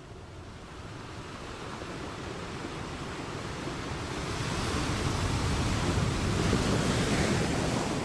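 Ocean waves breaking on the shore: the surf swells steadily over several seconds, peaks, and falls away again near the end.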